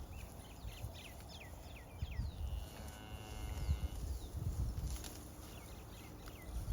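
A cow mooing once, a single drawn-out call of about a second and a half, over low rumbling and short high chirps.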